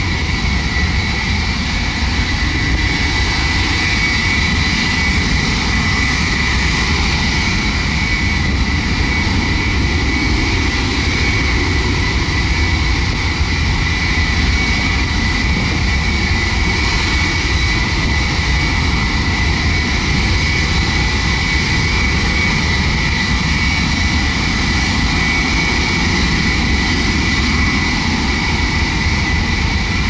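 Ilyushin Il-76MD's four Soloviev D-30KP turbofan engines running steadily. The engine noise is loud and even, with a high steady whine over it.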